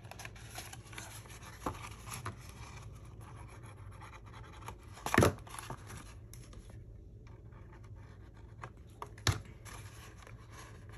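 Fingers handling, rubbing and pressing red cardstock as the glued tabs of a folded paper box are pressed flat and squared, a faint scratchy rustle. Two short sharp taps stand out, about five and nine seconds in.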